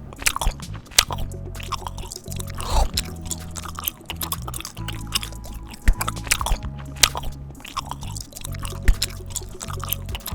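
Background music with a steady low beat under repeated crunchy chewing and biting sounds, many short sharp crunches throughout.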